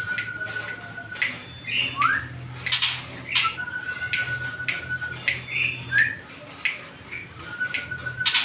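Songbird calling: sharp chirps and squawks repeated every half second or so, short rising notes, and three times a thin high whistle held for about a second and a half. A low steady hum lies underneath.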